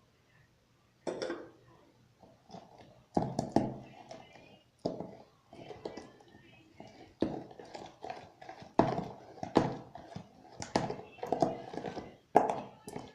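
Glue-and-borax slime being stirred and pressed with a spoon: irregular sticky squelches and clicks, one or two a second, starting about a second in. The slime is starting to come together.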